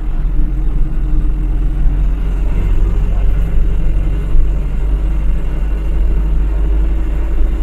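Batik Solo Trans city bus driving along, heard from inside the cabin: a steady low rumble of engine and road.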